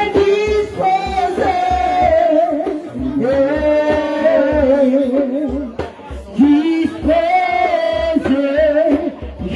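A congregation singing a worship song together, men's and women's voices at once, over a low regular beat.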